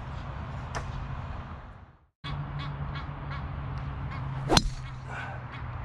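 Golf club striking a ball off the tee: one sharp crack about four and a half seconds in, over steady outdoor background noise.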